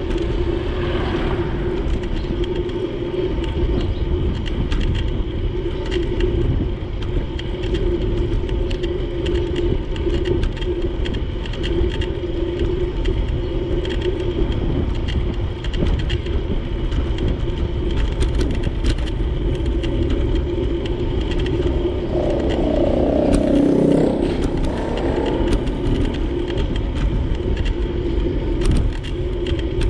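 Steady street traffic and road noise heard while riding a bicycle along a town road, with a low rumble throughout. About 23 seconds in a vehicle passes close, louder for a couple of seconds with its pitch bending.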